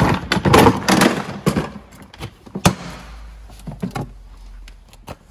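Milwaukee Packout plastic toolbox being handled and opened: a quick run of loud plastic clacks and knocks, then a single sharp snap, then lighter clicks and rustling as things in the tray are moved.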